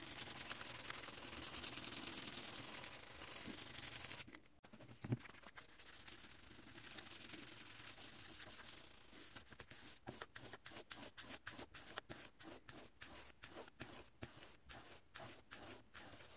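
Steel blade of a draw knife being rubbed with an abrasive stick in continuous back-and-forth scraping. After a short break and a single thump about five seconds in, a file is stroked along the blade in short, regular strokes, about three a second.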